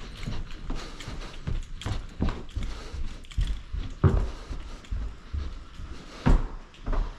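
A run of irregular knocks and bumps, with two louder thumps about four and six seconds in.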